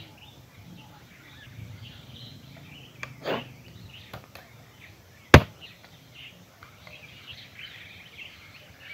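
Faint open-air ambience with small birds chirping, a soft knock about three seconds in and one sharp knock a little after five seconds.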